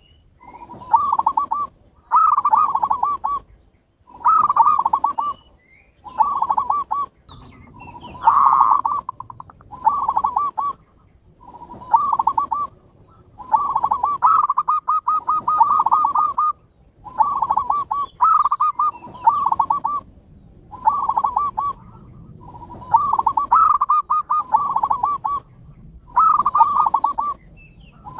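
Zebra doves (perkutut) cooing: trilled, bubbling coo phrases near 1 kHz, each about a second long, repeating every second or two.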